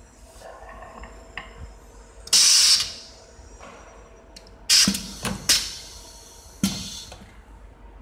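Pneumatic cylinder of a desktop perfume-bottle crimping press firing: a sudden blast of compressed-air hiss lasting about half a second a little over two seconds in, then three shorter sharp blasts with light knocks between about four and a half and seven seconds in.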